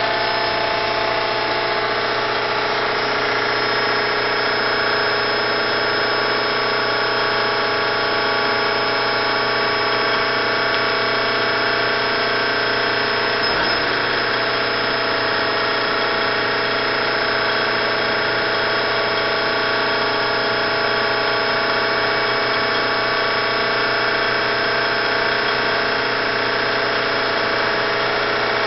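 Siber Hegner RB-1 CNC bedmill's 3-horsepower variable-speed milling head running steadily: an even hum with several steady whining tones that does not change.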